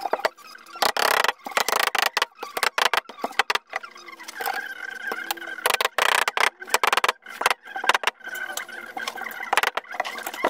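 Rapid, irregular knocks and taps, mixed with short squeaky tones: a rubber mallet tapping a rubber mat down onto the steel shelf of a welding cart.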